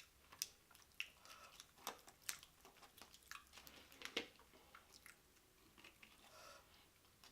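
Close-up chewing of a mouthful of loaded nachos: faint, irregular crunches of tortilla chips with soft wet squishes.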